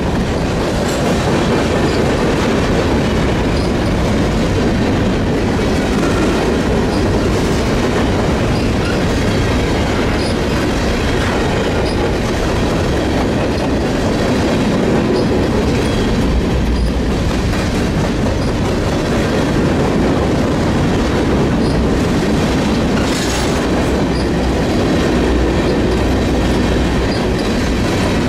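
A train rolling steadily past, its wheels clicking over the rail joints in a dense, continuous rumble, with a brief high-pitched flare about three-quarters of the way through.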